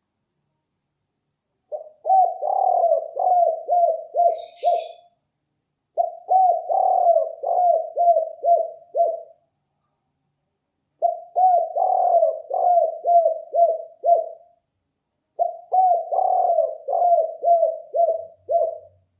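Spotted dove (balam, tekukur) cooing: four phrases of about three seconds each, each a quick run of low coos, with pauses of one to two seconds between them.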